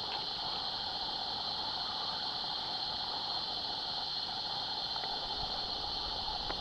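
Steady outdoor rainforest ambience: an even, unbroken hiss with a thin high band on top and no distinct events.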